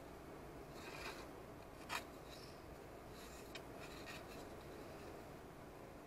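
Wooden craft stick stirring and scraping two-part epoxy on a piece of card: a few faint scrapes, with one sharper click about two seconds in.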